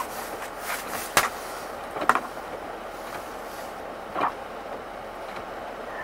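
Windshield wipers sweeping on a Mercury Grand Marquis idling with its garage door opening ahead, heard inside the cabin: a sharp click about a second in, then a short swishing squeak about every two seconds over a steady cabin hum.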